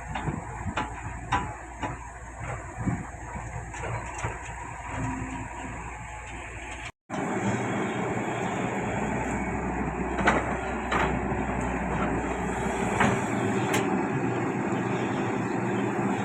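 Heavy diesel earthmoving machinery running, with metallic knocks and clanks in the first half. The sound cuts out for a moment about seven seconds in, then a steadier, louder engine noise carries on.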